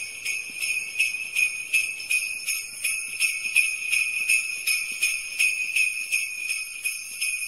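Sleigh bells shaken in a steady rhythm, about three shakes a second.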